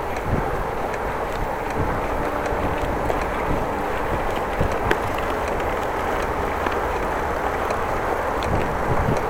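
Bicycle riding along: steady rolling and wind noise, with a faint regular ticking from the bike.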